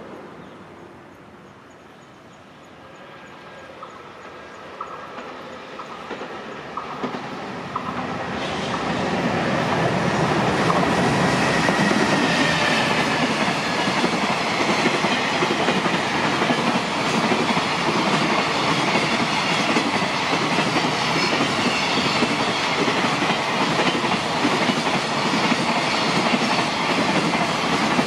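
JR Freight container train passing: its noise builds from about three seconds in, then from about ten seconds on the loaded container flatcars roll by with a steady, loud clickety-clack of wheels over the rails.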